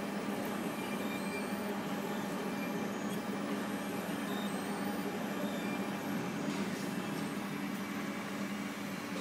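TagWorks laser engraving kiosk running steadily with an even machine hum while it engraves a metal pet tag.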